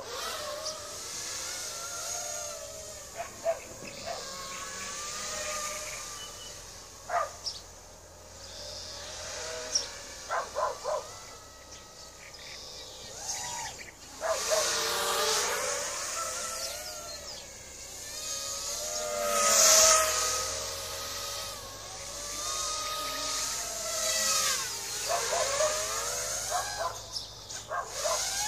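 Five-inch FPV racing quadcopter flying overhead: its Racerstar 2205 2600KV brushless motors and GEPRC 5040 three-blade props whine, the pitch sliding up and down with the throttle, loudest about twenty seconds in. A few short sharp sounds come in the first eleven seconds.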